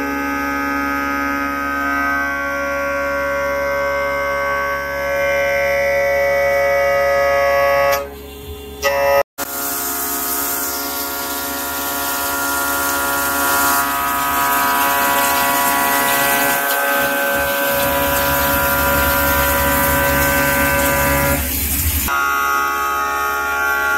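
CNC vertical machining centre milling a V-shaped punch: a steady whine of the spindle and cutter made of several pitched tones. After a brief break about nine seconds in, the hiss of coolant spraying over the work lies on top of it until shortly before the end.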